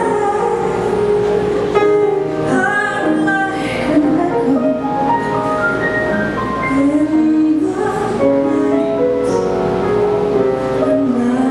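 Music: a singer's voice over instrumental accompaniment.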